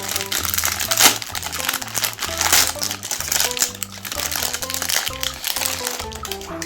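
A meat grinder crushing chocolate-coated Magnum ice cream bars, a dense crackling and crunching that thins out about six seconds in. Background music with a bass line and melody plays throughout.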